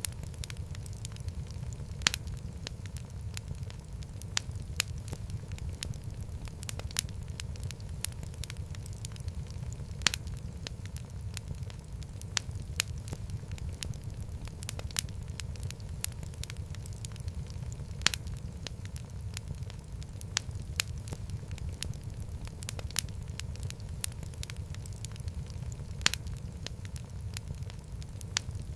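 Fireplace fire burning: a steady low rumble of flame with frequent sharp crackles and pops, some much louder than the rest.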